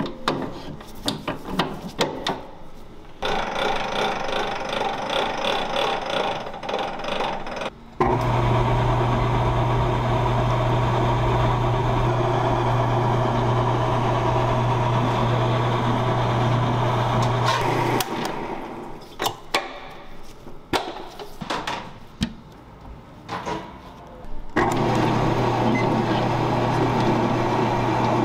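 Commercial planetary stand mixer running with a steady motor hum as it churns flour and dough in its steel bowl. The hum starts abruptly about 8 seconds in, stops around 18 seconds, and starts again near the end, with knocks and clinks of handling at the steel bowl between the runs.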